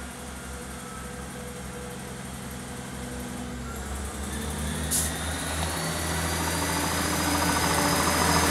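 ScotRail Class 158 diesel multiple unit approaching along the platform, its diesel engines running and growing steadily louder. The engine note shifts about halfway through, and wheel and rail noise builds as the train draws alongside.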